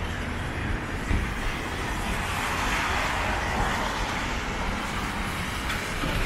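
A vehicle passing amid steady city street noise. Its sound grows about two seconds in and eases off after about four.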